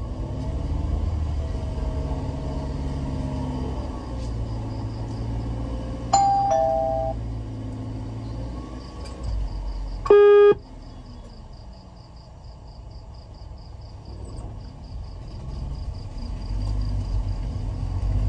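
Car engine running and revving inside the cabin of a manual sedan during a hill stop-and-start, with a two-note ding-dong chime about six seconds in and a loud half-second beep about ten seconds in. After the beep the engine settles lower and a fast, even ticking continues.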